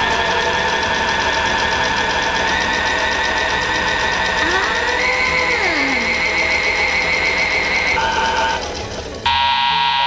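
Toy washing machine running its drying cycle: the small motor spins the drum with a steady electronic hum whose tone shifts in pitch about halfway through. Near the end a buzzer-like beep starts, the signal that drying has finished.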